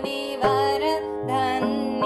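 Background music in Indian classical style: a steady drone under a melody that bends in pitch, with regular drum strokes about every half second.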